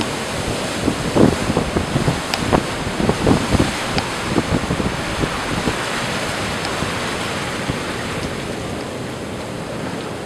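Big, sloppy storm surf breaking and washing in around wooden pier pilings, a steady rush of foaming water. Wind buffets the microphone in gusts during the first few seconds, then settles.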